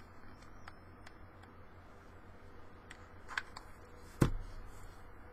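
Small handling noises at a craft table: a few light ticks and clicks, then one sharp knock about four seconds in, over a low steady hum.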